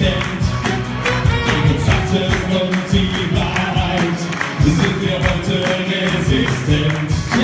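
Music with a steady beat, with singing voices over it.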